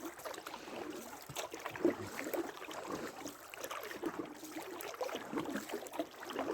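Small rowed boat on open water: irregular splashing of water and knocks from the boat and oars as it moves along.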